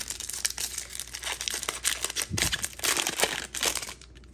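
Plastic wrapper of a 2024 Topps Series 1 baseball card pack being torn open and crinkled by hand, with the loudest crackling about two and a half to four seconds in as the cards are pulled out.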